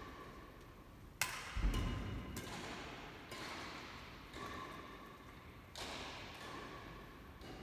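Badminton play in a large sports hall: a sharp crack about a second in, a low thud just after, then several softer hits about a second apart, each ringing on in the hall's echo.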